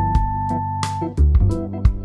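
Background music with a steady beat: pitched instrumental notes over regular drum hits.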